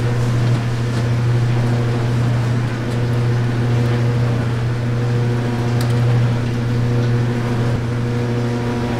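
Electric mixing machine's motor running steadily with an even, low hum as it churns glass noodles and pig's blood for sundae filling.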